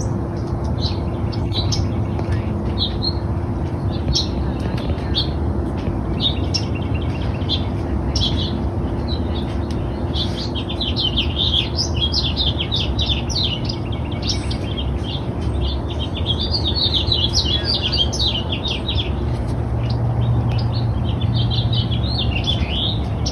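Birds chirping and singing, the song growing busier from about ten seconds in, over a steady low rumble with a faint steady hum.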